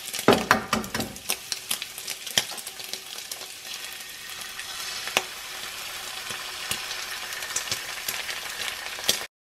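Streaky bacon and an egg frying in a pan: a sizzle with many sharp pops and crackles of spitting fat. The sizzle turns more even and hissy about four seconds in, then cuts off suddenly near the end.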